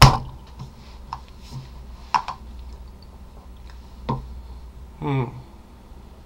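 A sharp loud knock at the start, then a few isolated light clicks, like small objects handled close to the microphone. About five seconds in comes a short hum of a voice.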